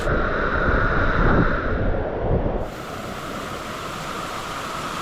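Rushing creek water, with low rumbling wind buffeting on the microphone for about the first two and a half seconds, then cutting suddenly to a steady hiss of flowing water.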